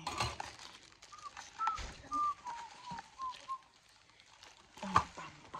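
A person whistling a short tune softly, about eight brief notes that step downward. Light handling noises run underneath, and there is a sharp knock near the end.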